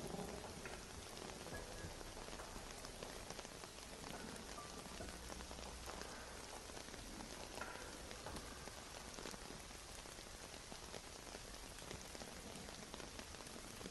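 Steady rain falling, with many small drops ticking on a surface.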